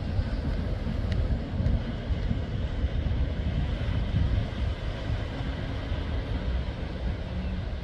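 Wind rumbling and buffeting on the microphone over a steady wash of ocean surf.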